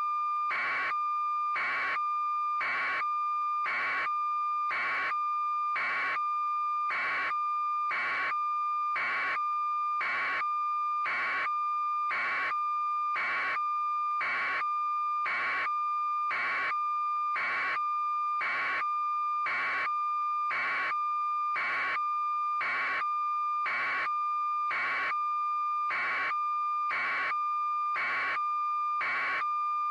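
Electronic alarm beeping at a steady, even rate of about one and a half beeps a second over a constant high tone.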